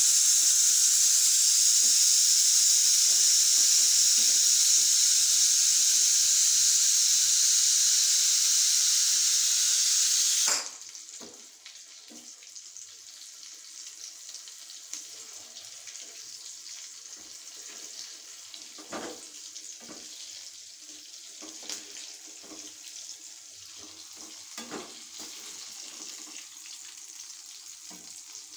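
A loud steady hiss that cuts off suddenly about ten seconds in, followed by hot oil sizzling as pieces of elephant foot yam deep-fry in a small wok, with a slotted metal spoon clicking against the pan.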